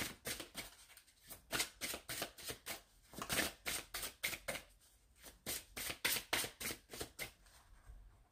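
A deck of fortune-telling cards being shuffled by hand: a quick run of soft card slaps and flicks, about three or four a second, stopping shortly before the end.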